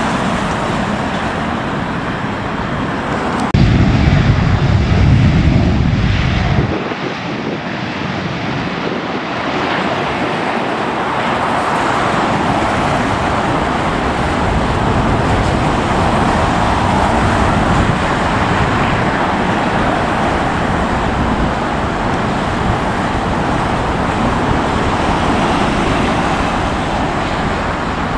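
Jet airliner engines running at high power, a steady loud noise as on a takeoff roll, with a louder low rumble for about three seconds near the start.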